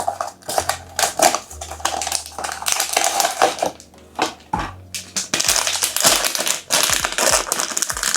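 A figurine blind box being opened by hand: a run of irregular crinkling, rustling and crackling from the cardboard and wrapper, with small clicks and taps, busier in the second half.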